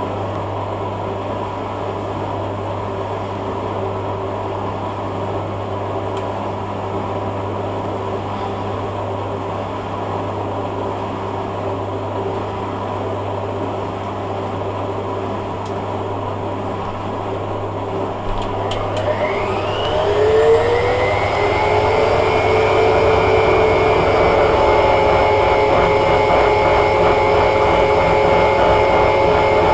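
Hoover A3786 Logic washing machine spinning with a steady motor hum and drum noise. About two-thirds of the way through, a rising whine shows the drum speeding up, and it settles into a faster, louder spin.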